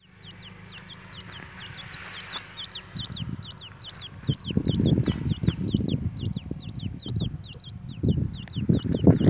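Grey francolin chick peeping: a steady run of short, high, downward-sliding peeps at about four a second. From about three seconds in, loud low muffled rumbles sound under the peeps.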